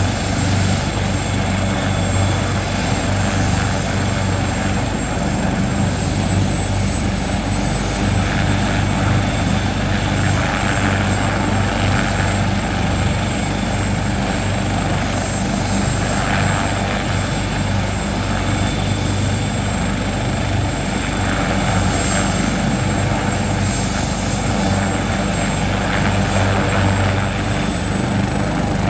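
New Jersey State Police NorthSTAR medical helicopter, a twin-turbine AgustaWestland AW139, running on the ground with its rotors turning. A steady rotor and engine drone carries a thin, high turbine whine on top.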